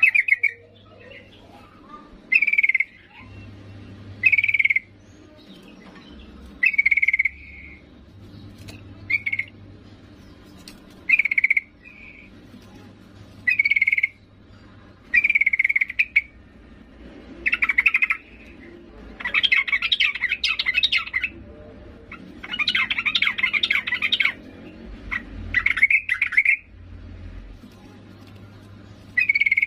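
Female yellow-vented bulbul (trucuk) calling: short sharp call notes about every two seconds, with two longer chattering phrases about two-thirds of the way through. This is the call used as a lure to draw male trucuk into song.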